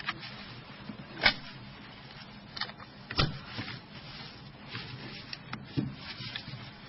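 Plastic protective film rustling and crinkling as it is handled and pressed onto a mobile phone, with a few sharp clicks and taps, the loudest about a second in and again about three seconds in.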